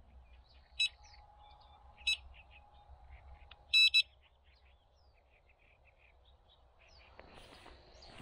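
Electronic carp bite alarm beeping: a single beep about a second in, another about two seconds in, then a quick double beep near four seconds, each one a sign of line being drawn through the alarm at the rod. Faint bird chirps in the background, and a rising rustling hiss near the end.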